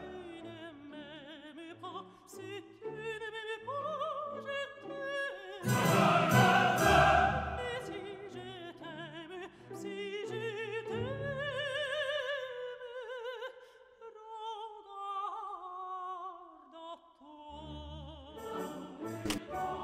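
Opera music: a singing voice with vibrato over an orchestra, swelling to a louder full passage about six seconds in before settling back.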